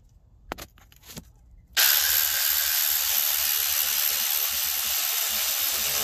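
A power ratchet with a 10 mm socket runs in a radiator mounting bolt. It starts suddenly about two seconds in as a loud, steady hissing run, lasts about four and a half seconds and cuts off at the end, after a couple of faint clicks.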